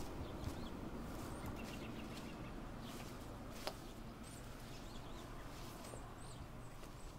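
Small birds chirping, short high calls repeated every second or so over a faint steady hiss, with footsteps through tall grass and one sharp click about three and a half seconds in.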